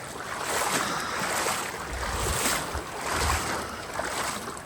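Legs wading through shin-deep floodwater, the water sloshing and splashing in a swell with each step. Wind buffets the microphone now and then.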